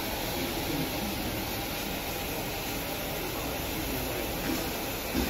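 Steady hiss of steam escaping from the LNER A3 steam locomotive Flying Scotsman.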